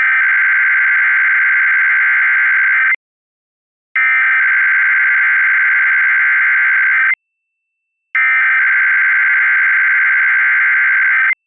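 Emergency Alert System SAME header for a Required Weekly Test: three identical bursts of harsh, buzzing digital data tones, each about three seconds long, with a second of silence between them.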